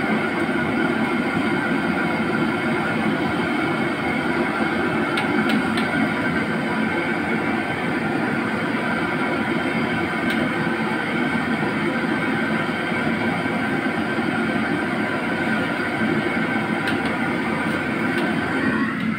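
Steady roar of a commercial gas wok range and its kitchen extraction, with a few light clicks of the metal spatula against the wok.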